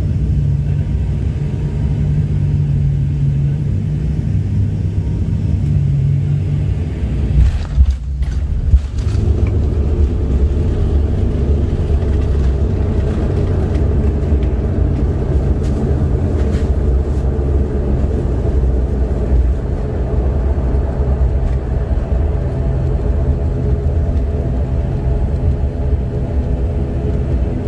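Cabin noise of an ATR 72-600 turboprop airliner landing: a steady low drone on final approach, a sharp thump about eight or nine seconds in as the wheels touch down, then the rumble of the landing roll with the engines' steady hum.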